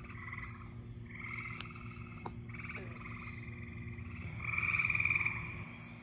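Gray tree frogs calling in chorus: a run of pulsed, musical trills about a second long each, several frogs overlapping, with the loudest trill about four to five seconds in. These are males' breeding calls at the pool.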